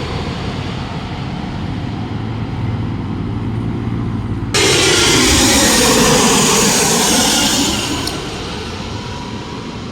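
Jet airliner engine noise: a steady low rumble. About halfway through, an abrupt cut brings a louder, brighter jet noise with a slowly sweeping, phasing tone, as a plane passes.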